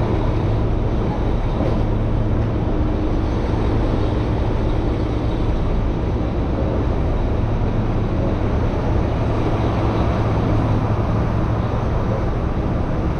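Steady city street traffic noise with a continuous low engine hum, unchanged throughout.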